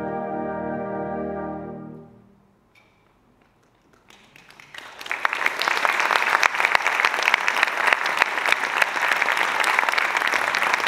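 A concert band's final held chord dying away about two seconds in. After a short hush, the audience's applause builds up and carries on steadily.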